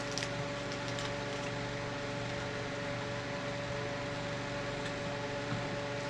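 Steady mechanical room hum with several constant tones over a steady hiss, from a fan or appliance running. A few faint clicks in the first second and a half.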